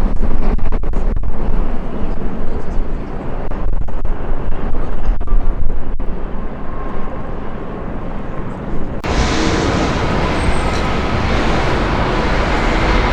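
Jet airliner engines roaring on takeoff, loud with a heavy low rumble. About nine seconds in the sound cuts abruptly to a steadier, hissier jet engine noise.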